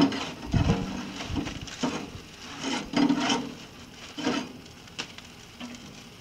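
Foil-wrapped beef ribs being shifted and turned on an offset smoker's metal cooking grate: an uneven run of scrapes, knocks and crinkling foil, loudest right at the start.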